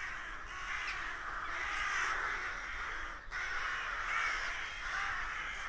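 A flock of crows cawing, many calls overlapping into a continuous din, with a brief lull about three seconds in.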